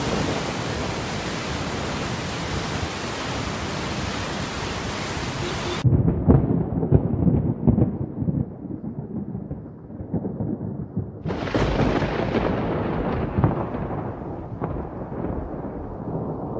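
Floodwater rushing through a dam spillway, a steady hiss that cuts off about six seconds in. Then rolling thunder with rain, with a sharper thunderclap about eleven seconds in that rumbles away.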